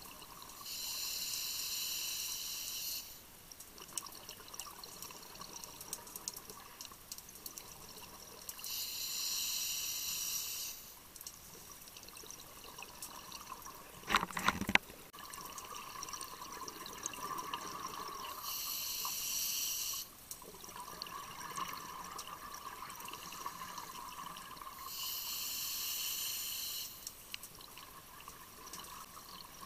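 Scuba diver breathing underwater through a regulator: four bursts of exhaled bubbles, each about two seconds long, coming about every eight seconds, with a steady hiss between them. One sharp knock about halfway through.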